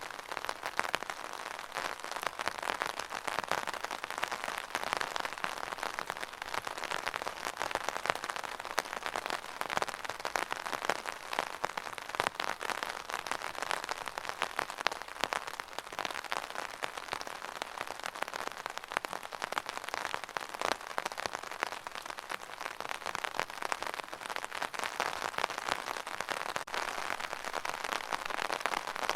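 Steady rain falling on a surface, a dense even patter of many small drops that keeps up without a break.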